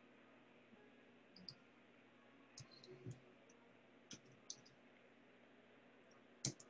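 Near silence with a few faint, scattered clicks at irregular intervals, the sharpest near the end.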